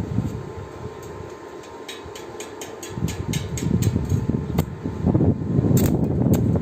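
Arc of a Resanta SAI 220 inverter stick welder crackling as steel pipe is welded. A run of sharp ticks, about five a second, comes in the middle, and the crackle grows denser and louder from about three seconds in.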